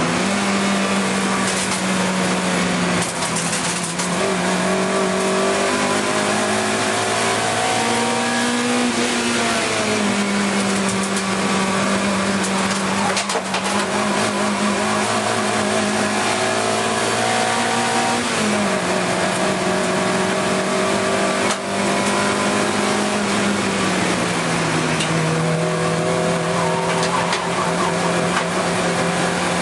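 Saloon race car's engine heard from inside the cockpit, running hard at racing speed. Its note holds fairly level and drops at gear changes about nine, eighteen and twenty-four seconds in, over road and wind noise.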